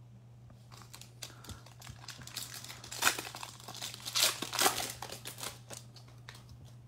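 Foil wrapper of a Contenders basketball card pack crinkling and tearing as it is ripped open by hand, in irregular bursts that are loudest in the middle. A low steady hum sits underneath.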